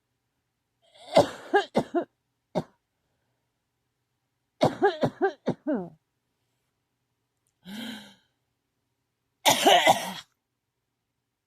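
A person in a coughing fit, coughing in three bouts of several quick, harsh coughs each, a few seconds apart.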